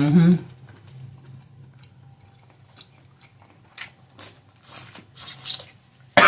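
Close-up mouth sounds of a person eating butter-dipped shrimp: a brief voice sound at the start, then wet smacking and chewing in short bursts in the second half. It ends in a sudden loud cough as the spicy butter sauce catches her throat.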